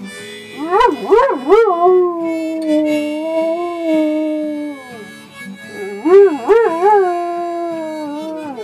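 Dog howling along to harmonica and acoustic guitar, its howls wavering up and down in pitch, with a long held note in the middle and another wavering run near the end.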